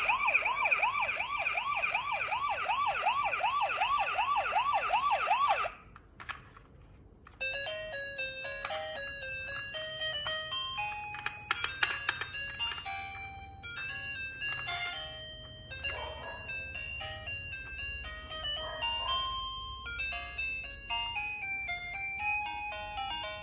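Toy police car's electronic siren, a fast warble of about three to four sweeps a second, which cuts off after about six seconds. After a short pause, a tinkly electronic melody of quick separate notes plays.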